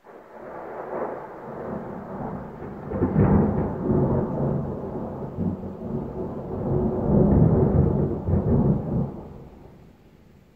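Loud rolling thunder from a nearby lightning strike. It breaks in suddenly, swells to heavy crashes about three seconds in and again around eight seconds, then rumbles away.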